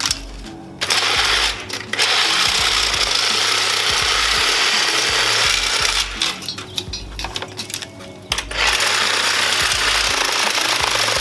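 Cordless reciprocating saw cutting through scrap HVAC coil metal: one long cut, a couple of seconds of short stop-start bursts, then another long cut near the end.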